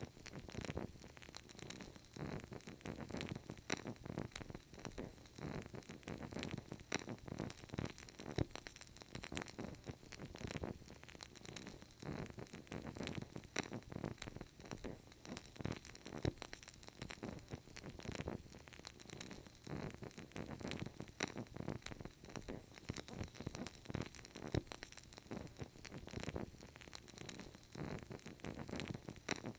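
Burning candle flame giving off a steady stream of faint, irregular crackles and small pops over a soft hiss.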